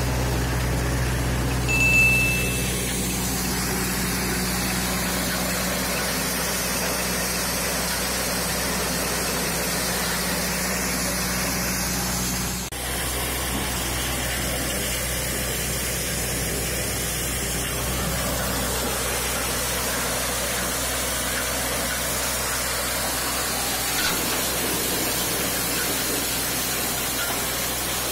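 Old corn sheller running steadily: a continuous mechanical drone with a hiss of grain and chaff being thrown out, and a brief break about halfway through.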